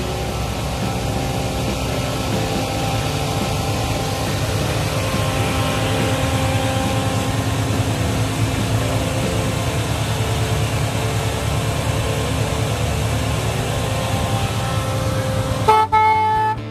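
Ford 351 Cleveland V8 idling steadily. Music cuts in sharply near the end.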